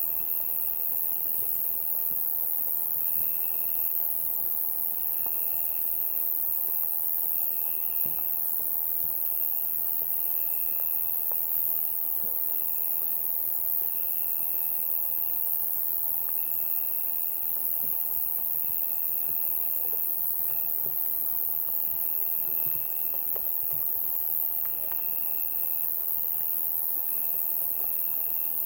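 Summer night insect chorus: a dense, steady, high-pitched buzz of many insects, with a cricket trilling in repeated pulses of about a second, separated by short gaps.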